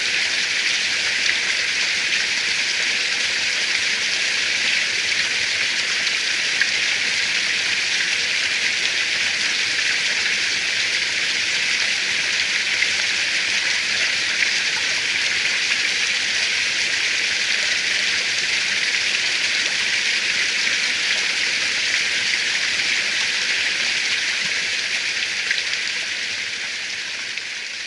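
Steady hiss of rain with a few faint scattered drop ticks, fading out over the last few seconds.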